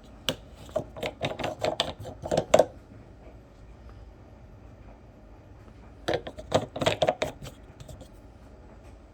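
Champion 8200i inverter generator's engine cranked twice without firing: two rattling, rasping bursts of rapid strokes, about two seconds and then about a second and a half long, with the engine failing to start.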